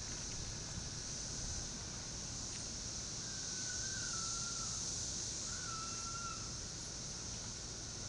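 Steady, high-pitched drone of a cicada chorus. Two brief wavering whistled calls sound over it, one about three and a half seconds in and one about five and a half seconds in.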